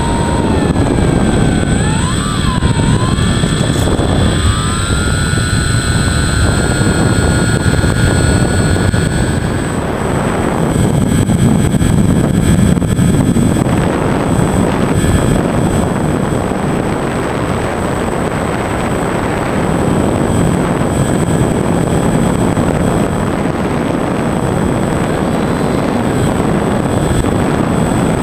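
Brushless electric motor and propeller of a FunJet foam RC plane whining, heard through heavy wind rush on its onboard camera. The whine dips and rises in pitch over the first few seconds, holds steady, then stops about ten seconds in, leaving wind noise.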